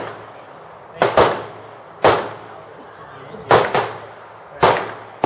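Gunfire on an outdoor shooting range: five or six sharp shots at irregular intervals, each with a short echoing tail, two of them in quick succession about three and a half seconds in.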